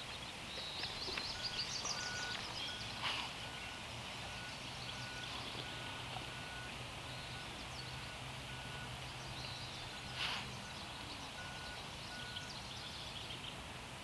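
Birds chirping faintly, most in the first few seconds and again near the end. A faint evenly spaced beeping runs alongside, and there are two soft knocks.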